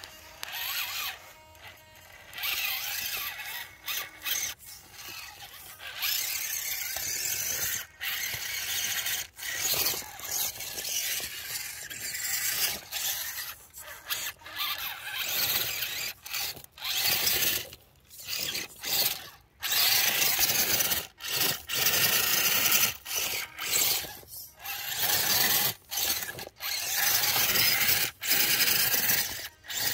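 ECX Temper Gen 2 RC rock crawler's electric motor and geared drivetrain whining in many short bursts as the throttle is blipped on and off while it climbs rocks.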